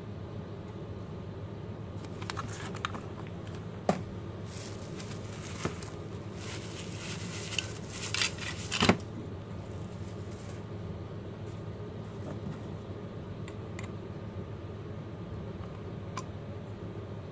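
Bubble wrap and a plastic sleeve rustling and crinkling as a small battery-powered paint mixer is unwrapped by hand, with several sharp clicks, the loudest about halfway through. A steady background hum runs underneath, and only the hum is left in the second half.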